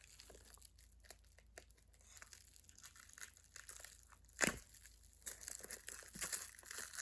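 Plastic wrap being crinkled and torn off by hand, faint and scattered at first, with one sharper crackle about four and a half seconds in and busier rustling near the end.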